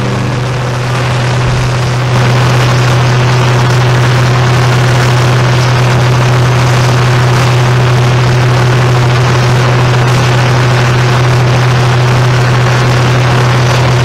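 Combine harvester's diesel engine and unloading auger running steadily as it unloads wheat into a semi's grain trailer, a constant heavy drone with a strong low hum. It gets louder about two seconds in.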